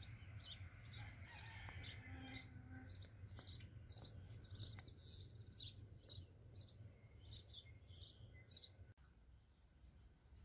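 A bird chirping over and over, short high chirps about two a second, that stop abruptly about nine seconds in, over a faint low hum.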